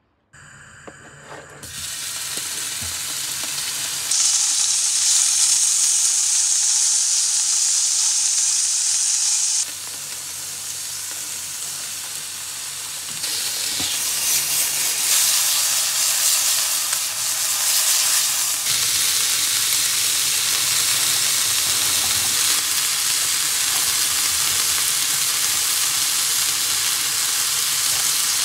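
Cubed chicken and chopped garlic sizzling in oil in a nonstick frying pan over a gas burner, stirred with a spatula. The sizzle jumps louder about four seconds in, eases near ten seconds, and picks up again soon after.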